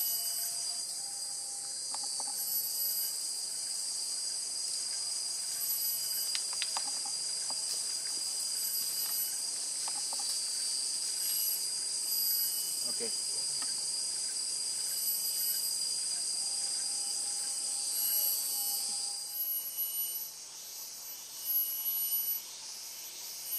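A steady, high-pitched drone of rainforest insects, which stops abruptly about nineteen seconds in, leaving fainter short chirps.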